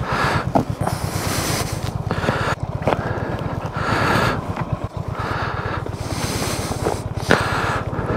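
Motorcycle engine running with a rapid, steady low pulse while riding, with gusts of wind noise on the microphone coming and going.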